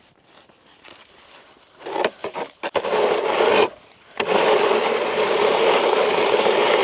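Scraping across snowy pond ice: a few short scrapes about two seconds in, a scrape about a second long, a brief pause, then one long steady rasping scrape of about three seconds that stops near the end.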